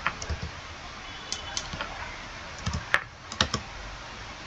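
Computer keyboard key presses and clicks, about ten of them at irregular intervals, over a faint steady hiss.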